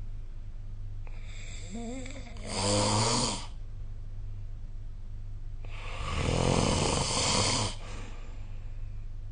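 A sleeping person snoring: two snores, the first about two seconds in, starting with a wavering tone, and a second, longer one about six seconds in.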